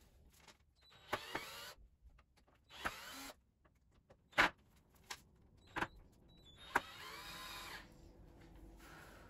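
Cordless drill-driver working the screws of a wooden loom frame to take it apart, its motor running in three short bursts that rise in pitch as it spins up. A few sharp clicks come between the bursts.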